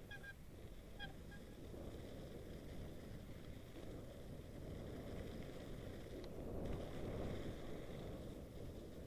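Mountain bike rolling down a snowy trail: a low rumble of tyres over snow and the bike rattling, with wind on the microphone, swelling louder around seven seconds in. A brief high squeak about a second in.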